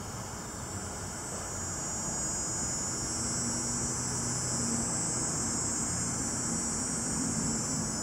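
Cicada song: a steady, high-pitched hissing buzz that swells louder a few seconds in, over a low background hum.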